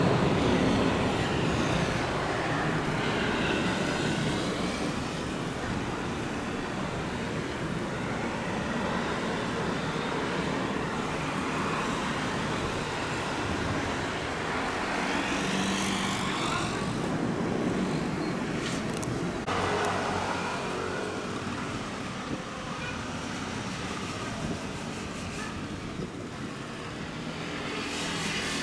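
Twin-engine widebody jetliner climbing out after takeoff: a steady, broad jet-engine rumble whose tone slowly sweeps as the aircraft moves away. About two-thirds of the way through, the sound changes abruptly to a quieter, more distant jet rumble across the airfield.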